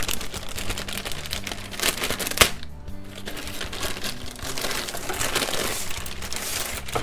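Thin plastic wrapping crinkling and rustling as a boxed LED grow light is handled inside it, with one sharp tap about two and a half seconds in. Background music plays underneath.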